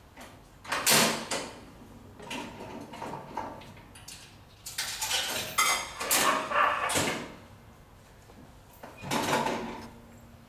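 Metallic clanks and rattling from a 1904 Moore cast-iron coin-operated talking scale being worked: a sharp clank about a second in, a longer stretch of rattling in the middle, and another clank near the end.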